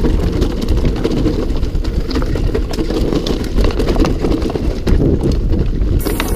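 Mountain bike ridden over rough ground: heavy wind rumble on the action-camera microphone with continual rattles and knocks.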